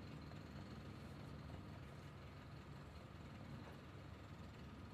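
Near silence: quiet room tone with a faint, steady low hum.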